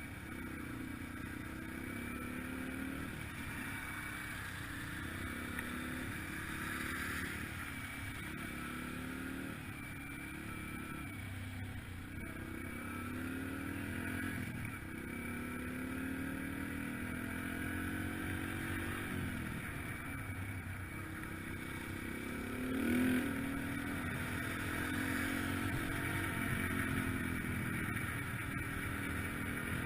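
2003 Yamaha TTR-125LE dirt bike's single-cylinder four-stroke engine under way, its pitch repeatedly climbing and then dropping as the bike is ridden through the gears. There is a brief louder burst about two-thirds of the way through.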